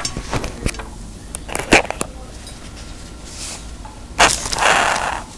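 Tableware handled on a table: scattered light clicks and knocks, then about four seconds in a sharp knock and a second-long scraping rustle as a large metal tray is pushed across the table.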